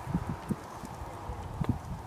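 Dull, irregular thumps with rustling: footsteps of someone carrying the camera through long grass, with handling noise on the microphone.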